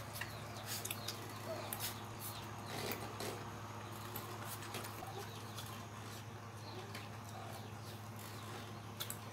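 Puppies and kittens moving about on a concrete floor: scattered light clicks and scuffs over a steady low hum.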